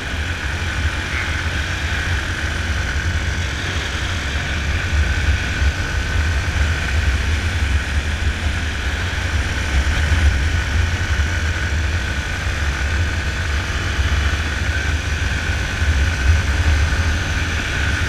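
Yamaha Fazer 250's single-cylinder engine running steadily under load on an uphill climb, with wind rumbling on the microphone.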